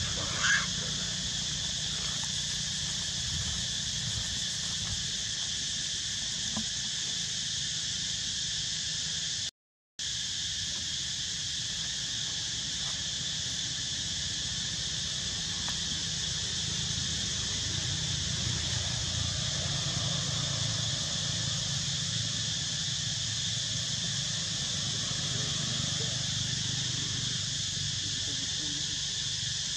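Steady high-pitched chorus of insects droning over a low background hum, with one short squeal just after the start. The sound drops out completely for a moment about ten seconds in, then resumes unchanged.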